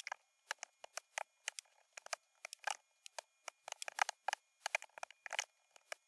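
Computer keyboard typing: quick, irregular key clicks, several a second, with short pauses between bursts.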